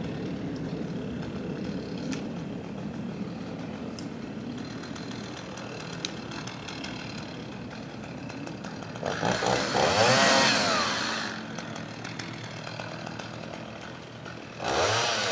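A chainsaw revving up and cutting for about two seconds, its pitch rising and falling, then revving again briefly near the end, over a steady low hum.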